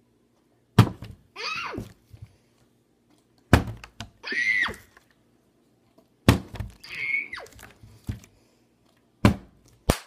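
Small partly filled plastic water bottle being flipped and landing on a tabletop with a hollow thunk about every three seconds, two thunks close together near the end. Most landings are followed by a short high-pitched child's squeal.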